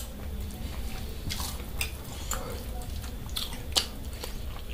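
Close-up chewing and mouth sounds of someone eating mutton and rice, with scattered short wet clicks and smacks over a low steady hum.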